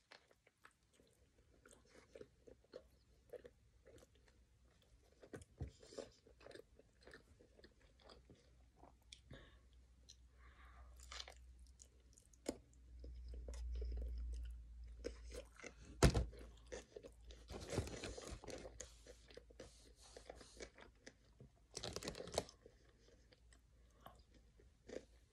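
Close-up biting and chewing of a Burger King Whopper: many small wet clicks and crunches from the mouth, with a sharp tap a little past the middle.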